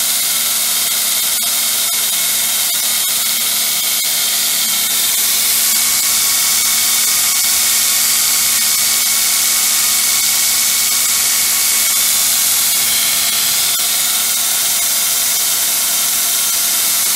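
Heretic 2x72 belt grinder running free with its abrasive belt at 7,000 surface feet per minute, no blank on it: a loud, even rush of belt noise with a constant hum and whine from the VFD-driven motor underneath.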